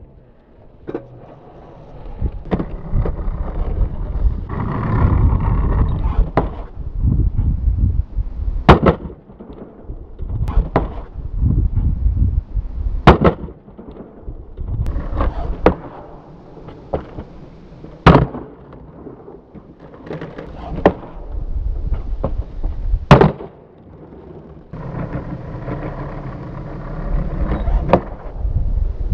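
Skateboard wheels rolling on concrete in a low rumble that swells and fades, broken by sharp board cracks from tail pops and landings, several of them loud.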